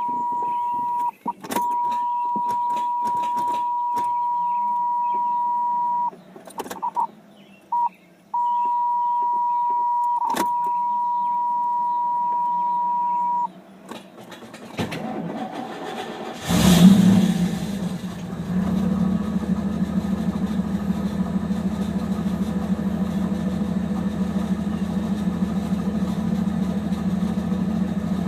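A steady high electronic tone sounds for about the first thirteen seconds, broken off a few times. Then the 1991 Pontiac Trans Am's tuned-port-injected V8 cranks briefly, catches about seventeen seconds in with a loud burst, and settles into a steady idle.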